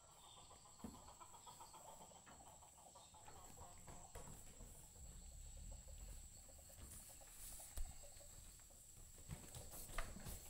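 Near silence: faint background noise with a few soft knocks, the sharpest about eight and ten seconds in.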